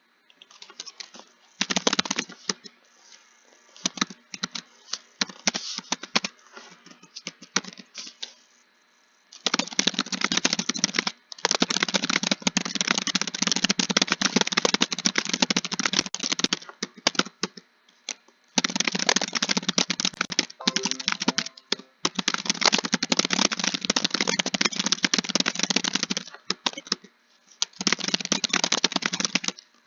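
Fast typing on a computer keyboard: rapid runs of key clicks in stretches of a few seconds, separated by brief pauses. The first few seconds hold slower, scattered keystrokes.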